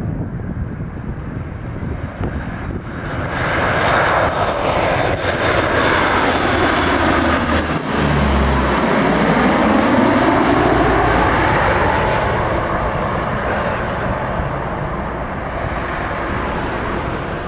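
A military aircraft's engines passing close by: the noise builds to a peak about eight to ten seconds in, with a sweeping, phasing whoosh as it goes over, then slowly fades away.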